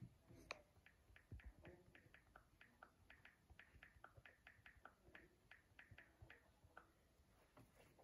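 Near silence with a faint run of quick, light clicks, about four a second, stopping about seven seconds in.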